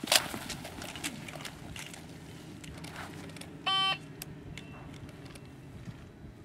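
Outdoor shooting-range ambience: scattered clicks and knocks over a low steady hum, with one short electronic beep about halfway through.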